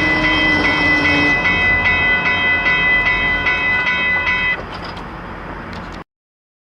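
Level crossing warning bell ringing steadily about twice a second over the rumble of a passing commuter train. The bell stops about four and a half seconds in, leaving the quieter train noise, and then the sound cuts off abruptly.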